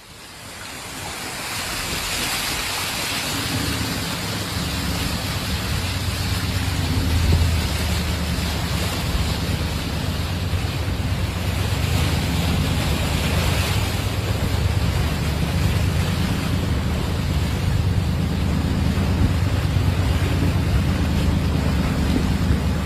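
A vehicle driving through floodwater over a road, its wheels throwing up spray: a steady rush of water with a low rumble that builds over the first few seconds.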